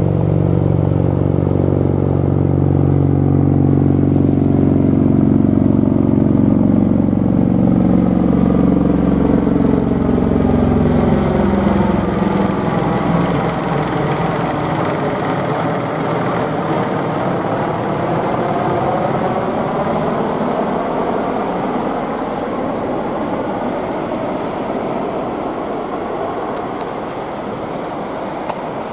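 Low-flying aircraft passing over, loud at first with a deep droning note that falls in pitch as it goes by, then fading into a long, slowly receding rush.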